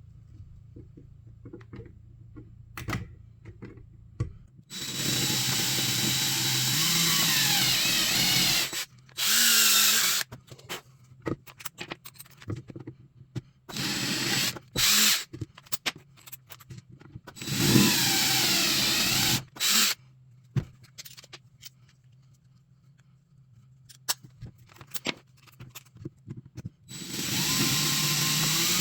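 Electric drill boring holes through deer-antler beads, run in about five separate bursts, the longest about four seconds. The whine's pitch sags and recovers as the bit bites into the antler, with small knocks and clicks of handling between runs.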